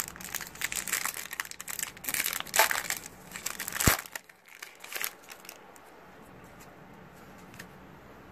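Foil wrapper of a Yu-Gi-Oh! booster pack being torn open and crinkled: a dense run of crackling for about five seconds, with a sharp snap near the four-second mark.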